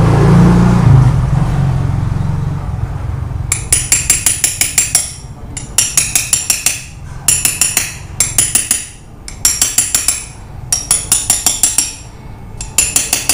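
Quick, light hammer taps on a steel socket used as a driver, seating a bearing and oil seal into a motorcycle sprocket hub. The taps come in about seven bursts of roughly a second each, several taps a second. Before the tapping starts, a low rumble fades away over the first three seconds.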